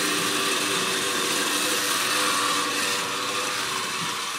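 Steady whirring hum of a small motor over a hiss, growing a little fainter near the end.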